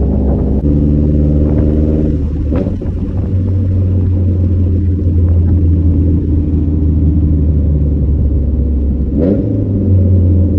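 Nissan S14's engine heard from inside the cabin while driving, with a deep steady drone. Its note shifts about two to three seconds in and again near the end.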